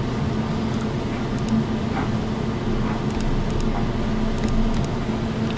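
Steady low mechanical hum of background room noise with a constant tone in it, broken by a few faint clicks.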